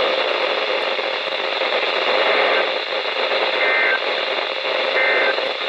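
Hissy, static-laden NOAA Weather Radio reception from KWO35, with three short data bursts about a second and a half apart: the EAS end-of-message tones that close an alert.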